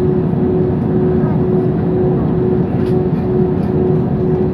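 Airbus A320 engine and airframe noise heard from inside the cabin while the jet taxis: a steady low rumble with a constant droning tone over it.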